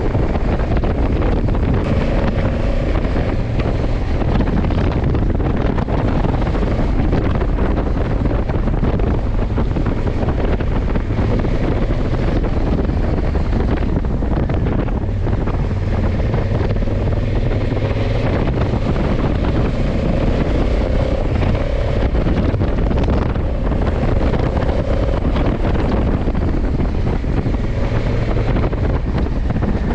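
Steady wind rush on the microphone of a motorcycle at road speed, over the constant drone of a 2020 Honda CRF1100 Africa Twin's parallel-twin engine.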